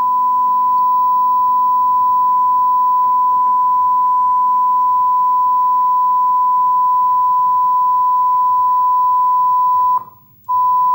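Steady single-pitch test tone that accompanies an analogue TV station's colour-bar test card, heard through the television's speaker. It cuts out for about half a second near the end, then comes back.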